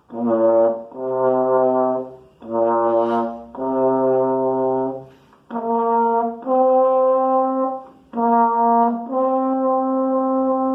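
Tenor trombone playing eight held notes separated by short breaks, the first four low and the last four an octave higher, alternating between two neighbouring pitches as in a B–C slide passage that needs the slide to go from full extension to closed.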